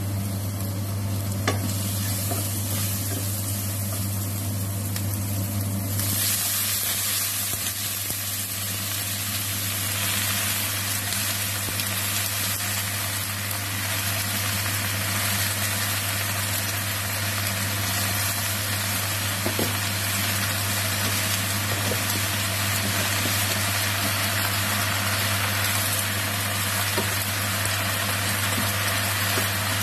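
Stir-frying in a nonstick wok: garlic and chilli sizzling in oil, then from about six seconds in a louder, brighter sizzle as water spinach (kangkong) fries and is tossed with a spatula, with an occasional tap on the pan. A steady low hum runs underneath.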